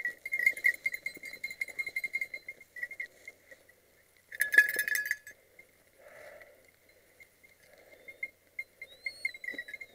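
Small bell on a hunting hound's collar jingling in irregular shakes as the dogs tug at a freshly caught hare, with one louder shake about four and a half seconds in. Faint rustling underneath.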